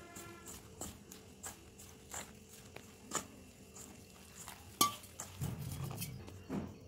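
Light clicks and knocks of a hand and a steel pot against a steel mixing bowl as ragi flour is mixed with poured water. They come at an irregular pace, with the loudest knock about five seconds in.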